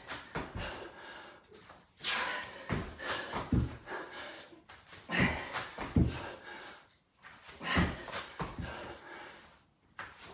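A man breathing hard through the nose and mouth in sharp, effortful bursts about every second while doing burpee-style reps. Between the breaths come soft knocks as his feet and hands land on the exercise mat.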